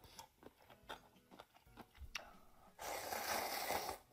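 Close-miked eating sounds of someone eating ramen noodles: faint chewing and small mouth clicks, then a loud slurp of noodles lasting about a second near the end.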